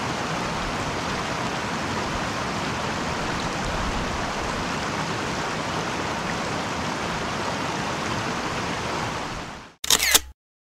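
Small mountain headwater stream running over rocks: a steady rush of water that cuts off suddenly near the end, followed by a short loud burst.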